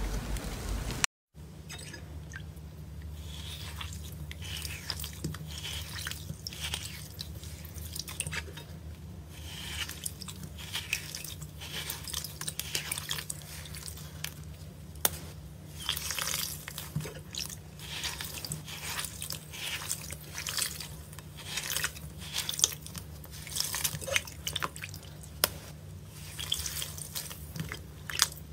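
Hands squeezing and breaking chunks of green slime in a glass bowl of water: irregular wet squelches, crackles and drips over a low steady hum, after a brief dead silence about a second in.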